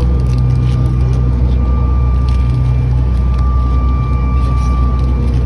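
Airliner cabin noise while the plane taxis after landing: a loud, steady low drone of the jet engines and air system with a thin, steady high whine over it.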